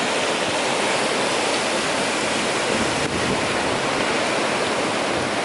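Steady, loud hissing noise with no pitch.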